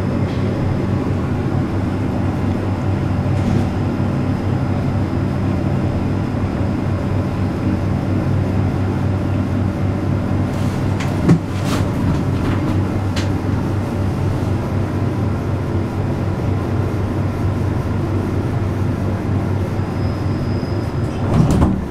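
Inside the car of a 1975 Otis traction service lift travelling upward: the steady low hum and rumble of the ride, with a single sharp knock about eleven seconds in.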